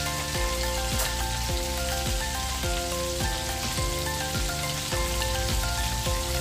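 Battered squid rings deep-frying in hot oil, a steady crackling sizzle, under background music with a steady beat.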